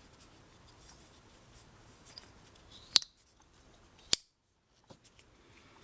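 Two sharp clicks about a second apart from a TwoSun TS90 slipjoint pocket knife: the blade snapping into position under the slipjoint's backspring.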